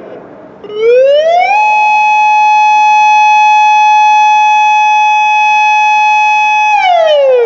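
Federal Signal Modulator II 8032B electronic warning siren sounding its alert tone during a test. About a second in the tone glides up in pitch, holds steady and loud for about five seconds, then falls away near the end.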